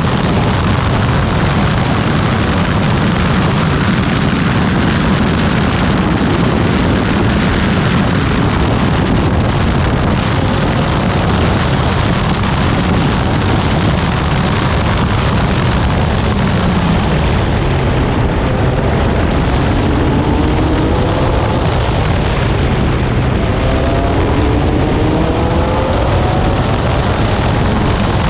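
Onboard sound of a Formula Delta single-seater racing car at speed: a loud, steady rush of engine and wind noise. In the second half the engine note rises twice as the car accelerates.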